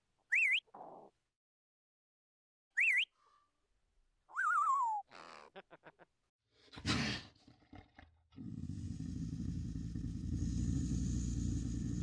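Parrot calls: short, wavering whistles near the start and about three seconds in, a falling whistled call a little after four seconds, and a harsh squawk around seven seconds. From about eight seconds a steady low noise takes over.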